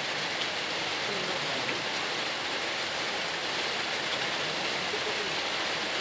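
Light rain falling on a pond, a steady even hiss.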